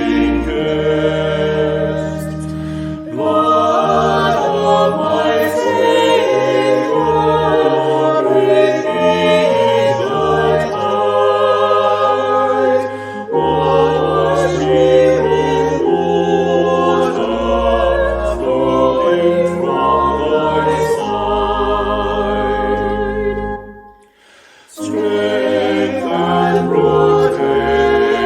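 Choir singing a hymn, with long held low notes underneath, pausing briefly near the end before the next phrase.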